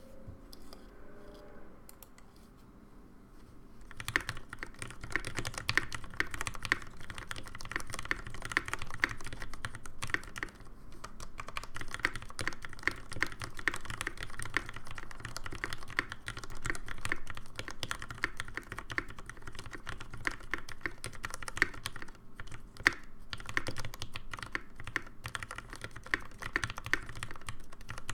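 Typing on a Kyuu mechanical keyboard with 64 g Cherry MX Vintage Black linear switches and ePBT keycaps: quick, continuous keystrokes that begin about four seconds in, with a brief pause near the ten-second mark.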